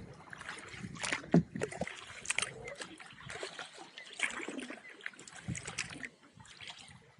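Kayak paddle strokes dipping and splashing in the river, with water trickling off the blades, about one stroke a second. There is one louder thump about a second and a half in.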